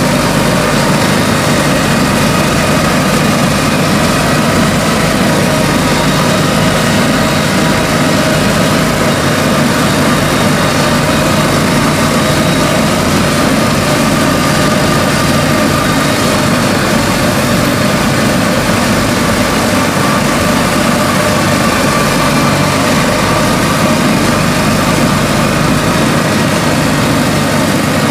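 Diesel engine of tracked farm machinery running steadily while travelling on the road, a constant drone that holds the same pitch and loudness throughout.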